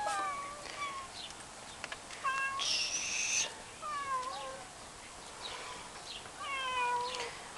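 Domestic cats meowing: a series of about five separate meows, each falling in pitch, with a louder, shrill high-pitched cry about three seconds in.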